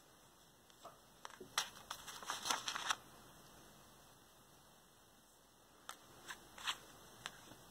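Light handling noises as hands move crochet work, yarn and a stitch marker over a paper chart: a cluster of soft clicks and rustling about one to three seconds in, then a few single light taps near the end.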